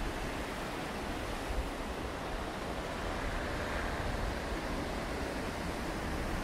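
Steady wash of sea waves breaking on the beach, with a low rumble of wind on the microphone.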